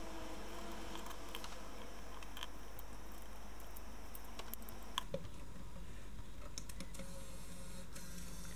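Small clicks and rattles of hands handling a compact camera's plastic body and fitting AA batteries into it, with one sharper click about five seconds in.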